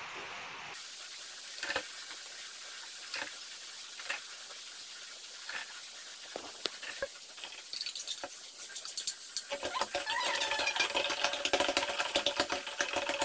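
Brown sugar being spooned into a plastic pitcher of hot water, with scattered taps and scrapes of the spoon. From about nine seconds in, a spoon stirs fast in the pitcher, clicking and rattling against its sides as the sugar dissolves.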